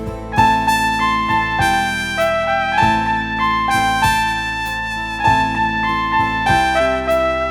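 Background music: a keyboard melody of notes changing about every half second over sustained low bass notes.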